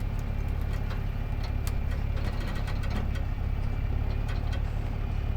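Truck engine idling steadily, a low even rumble with scattered light ticks over it.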